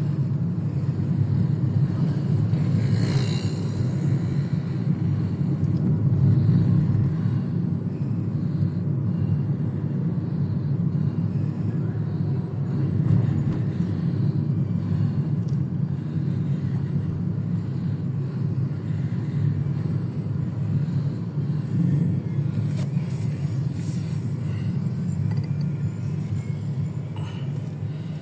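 Steady low rumble of a car's engine and tyres heard from inside the cabin while driving slowly in traffic.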